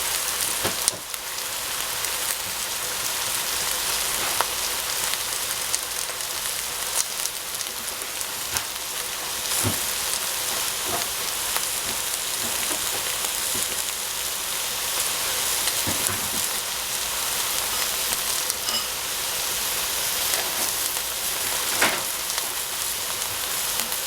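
Food sizzling steadily in hot oil in a pan, with a few light clicks scattered through.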